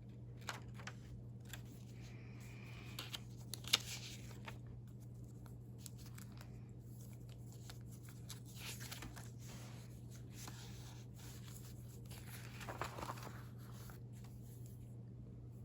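Faint rustling and handling of old newspaper-clipping pages in a recipe binder as they are turned, with scattered light clicks and a sharper click a little under four seconds in.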